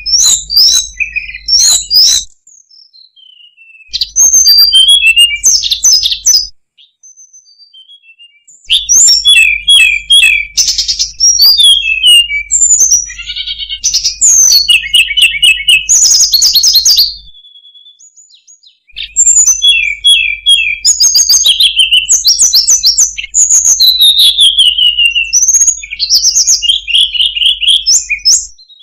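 Hill blue flycatcher (tledekan gunung) song: loud, rapid runs of high whistled notes and trills that change phrase constantly, in four long bursts with short pauses between them.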